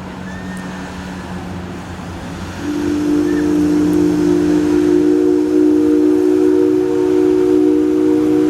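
Steam locomotive's chime whistle sounding a long, steady blast of several tones at once, starting about three seconds in and held.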